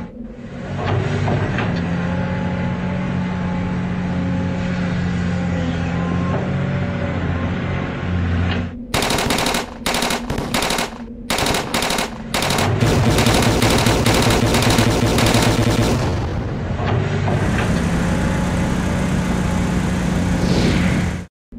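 Cartoon sound effects with a steady musical drone underneath. About nine seconds in comes a run of rapid, stuttering bursts that stop and start several times, like automatic gunfire, then a few seconds of dense, loud noise.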